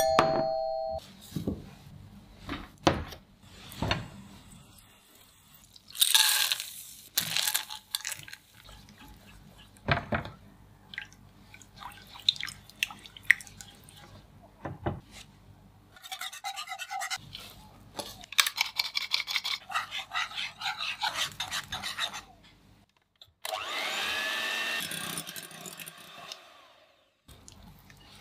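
Kitchen prep sounds from making a chocolate cake: a short electronic beep at the start, then utensils clicking and knocking against a pan and bowls while a spatula stirs thick melted chocolate. A stretch of rapid, even ticking follows, and near the end a small electric motor runs steadily for about three seconds.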